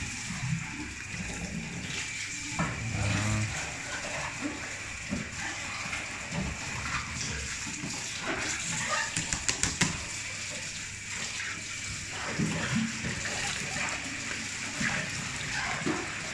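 Tap water running steadily into a stainless-steel tray of inky water, with a cluster of sharp clicks about nine seconds in.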